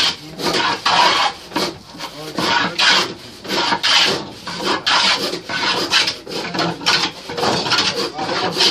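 Hand plane shaving a wooden board in repeated push strokes, about one a second, each a rasping scrape of the blade cutting wood.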